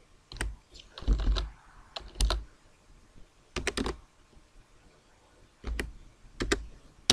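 Computer keyboard keys being typed: short clicking keystrokes in small clusters of one to three, with pauses of about half a second to a second and a half between them.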